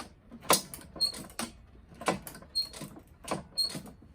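Sharp metallic clicks and knocks, about eight spread over a few seconds, with a few very short high squeaks, from hand work on a lawnmower's drive cable and tension spring.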